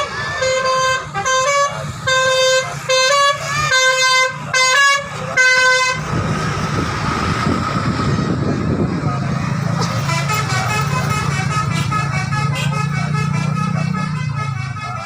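Indonesian telolet bus horn, a multi-tone musical air horn, playing a melody of short blasts on changing notes for about six seconds. Then the horn stops and the bus's engine runs with a steady low drone, with voices and other noise over it.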